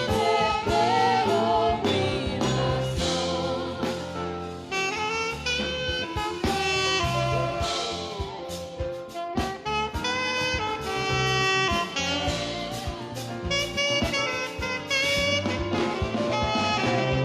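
Saxophone playing a worship melody with vibrato over a backing track with a repeating bass note.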